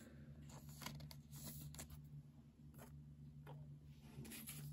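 Faint, scattered ticks and rustles of a trading card being handled and slipped into a clear plastic sleeve, over a low steady hum.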